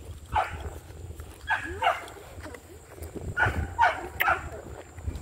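A dog yapping in short, high yelps that drop sharply in pitch, six or so in three bursts: one about half a second in, two near the second and a half, and three in quick succession around four seconds in.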